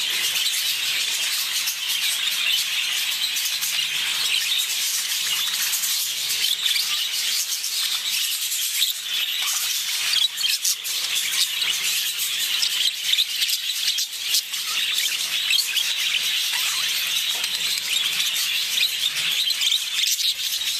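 Two budgerigars chattering, a continuous high twitter full of small clicks, with paper folders rustling under them.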